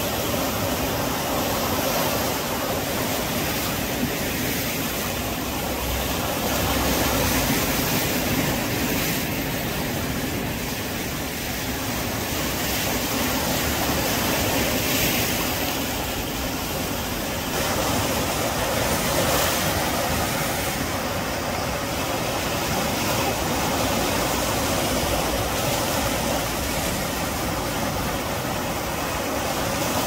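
Sea surf breaking and washing over rocks and sand: a steady rush of broken waves and foam that swells louder a few times as bigger waves come in.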